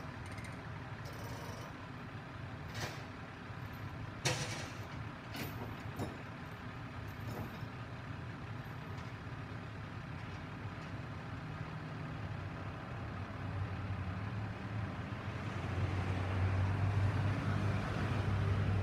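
Heavy truck engine running steadily, getting louder in the last few seconds, with a few sharp knocks in the first seconds, the loudest about four seconds in.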